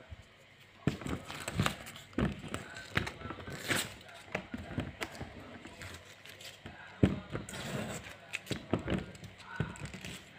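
Irregular scratches, clicks and knocks from fingers picking and peeling stickers off a wardrobe door, with bumps from the handheld phone.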